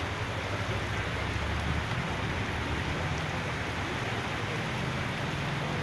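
Heavy rain pouring steadily onto surfaces, an even hiss with a low rumble underneath.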